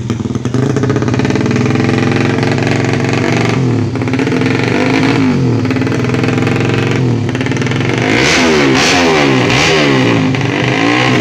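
Tuned Yamaha Jupiter Z 125 cc four-stroke single-cylinder engine being revved in repeated throttle blips, its pitch rising and falling, revving hardest about eight to ten seconds in.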